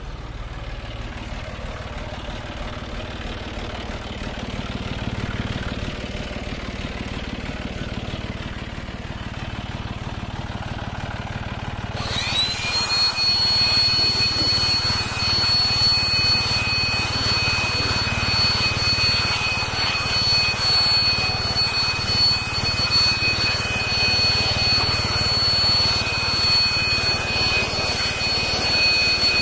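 John Deere tractor's diesel engine running steadily. About twelve seconds in, the sound grows louder and a high, steady whistle from the turbocharger rises and holds over the engine.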